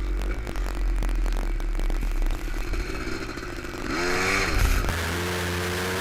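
ATV engine running, revving up and back down about four seconds in, with rumble and rushing noise. About five seconds in the sound switches abruptly to a different steady engine drone with hiss.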